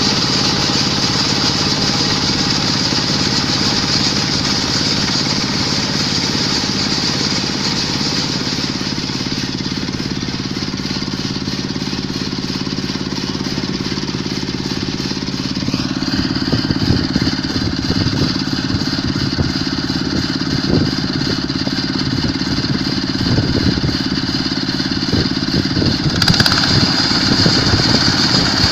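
Quick H-140R combine harvester running on its Kubota diesel engine: a steady machine drone with a high whine. About halfway through the pitch steps up and an irregular knocking and rattling joins in, and near the end the whine gets louder.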